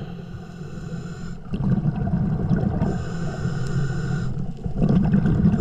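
A diver breathing underwater through a Brownie's Third Lung hookah regulator, in a cycle of about three seconds. Hissing, whistling breaths drawn in through the regulator alternate with noisy, bubbling exhalations.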